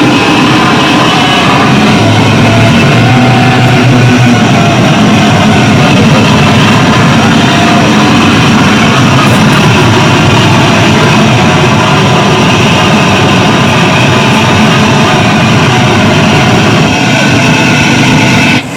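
Harsh noise played on electronics: a loud, dense wall of distorted noise that cuts off suddenly near the end.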